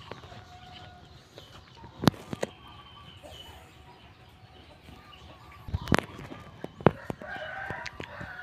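Domestic chickens clucking, with a rooster crowing near the end, over several sharp knocks.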